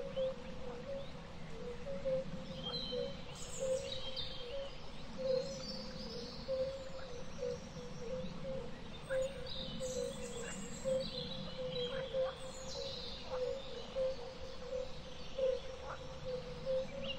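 Birdsong ambience: small birds chirping now and then over a steady hum that carries a faint regular pulse.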